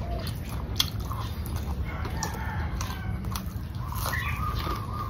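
A rooster crowing in the background: a short call about two seconds in, then one long drawn-out crow starting about four seconds in. Close, small clicks of chewing sticky rice throughout.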